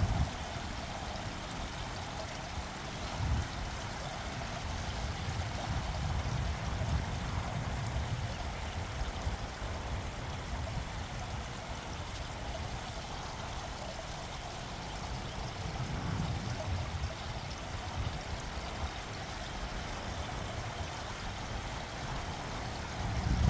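Fountain water running steadily as it spills over the rim of the pool into the surrounding trough, with irregular low rumbles coming and going.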